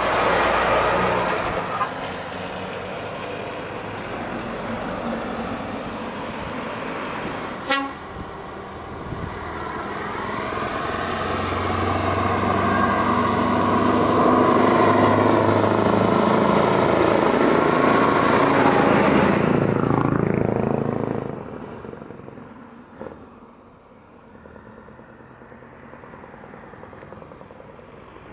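Heavy trucks' diesel engines driving past at close range. About ten seconds in one truck's engine grows loud, its note rising and falling as it goes by, then falls away about 21 seconds in to quieter road traffic.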